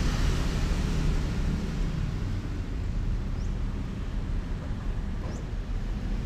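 Steady low rumble of outdoor background noise, with two faint, short, high rising chirps, one about halfway and one near the end.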